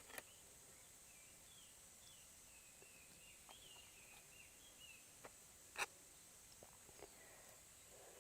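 Faint outdoor ambience: a steady high insect drone with soft, wavering bird chirps, broken by a few short clicks, the loudest about six seconds in.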